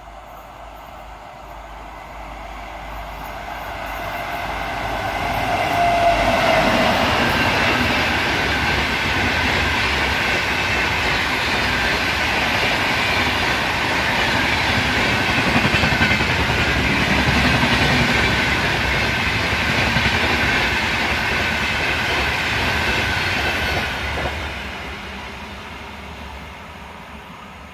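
A train passing by: its noise grows louder over the first six seconds or so, holds steady through a long middle stretch, then fades away near the end.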